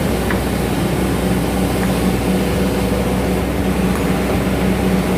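Hydraulic excavator's diesel engine running steadily with a low hum while the machine swings and dumps a bucket of soil.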